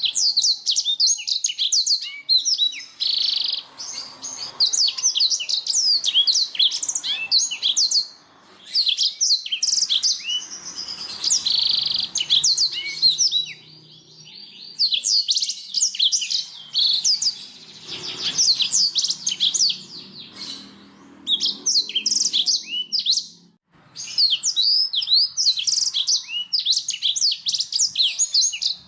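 Domestic canary singing in long, fast phrases of high chirps and sliding notes, with short pauses between phrases.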